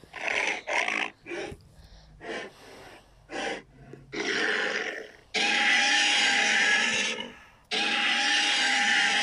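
Custom-made Godzilla Millennium-era monster vocal effects: a string of short harsh grunts and snarls, then two long, loud, rasping roars with a steady held pitch, each about two seconds or more.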